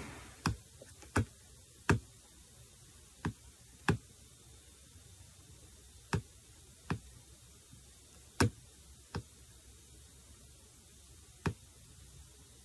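Light taps on the recording phone's screen, about ten sharp clicks at irregular intervals over quiet room tone.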